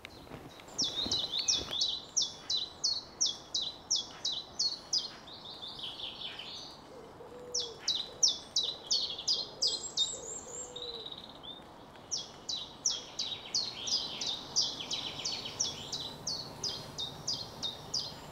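Common chiffchaff singing: three bouts of its evenly repeated, steeply falling 'chiff-chaff' notes, about three a second, with short pauses between bouts.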